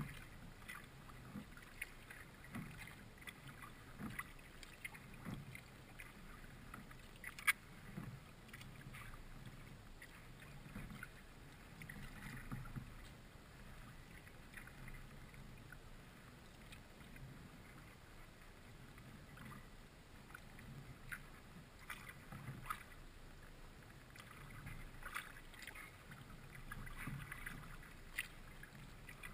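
Kayak paddle strokes: the blades dip, splash and drip into calm creek water about once a second. A single sharp knock comes about seven and a half seconds in.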